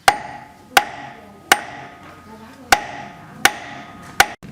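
Hammer striking metal six times, each blow ringing briefly, with a longer pause between the third and fourth.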